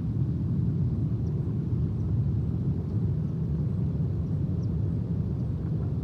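Steady low rumbling noise with no clear pitch, fluttering in level, with a few faint high ticks.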